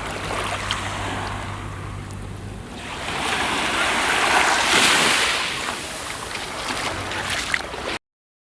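Sea waves washing in with wind buffeting the microphone, swelling to a peak midway. A low steady hum sits under the first few seconds. The sound cuts off suddenly near the end.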